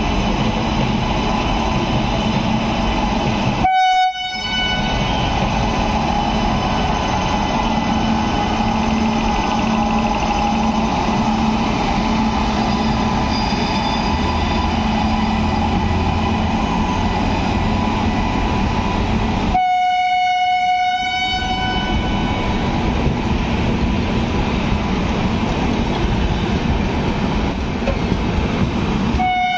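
WAP-7 electric locomotive hauling an express past on departure. There is steady running noise from the locomotive and coaches rolling on the rails, and a train horn sounds three times: a short blast about four seconds in, a longer one around twenty seconds, and another just at the end.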